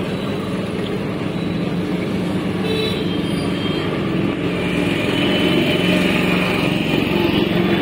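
Steady engine drone amid roadside traffic noise, with a higher whine coming in about five seconds in.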